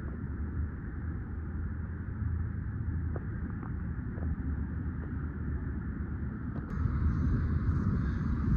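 Steady low rumble of a vehicle, getting louder and brighter at about seven seconds in.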